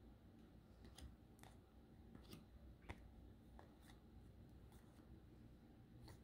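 Near silence with faint, irregular soft clicks and rustles of baseball cards being flipped through one by one.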